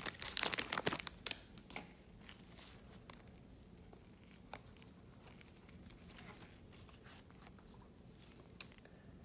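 Foil trading-card pack wrapper crinkling and tearing as it is pulled open, dense for about the first second, then only faint ticks of cards being handled, with one sharper click near the end.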